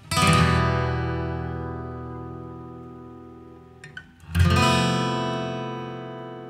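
Background music: acoustic guitar chords strummed and left to ring out, one just after the start and another about four seconds in, with a light pluck just before the second.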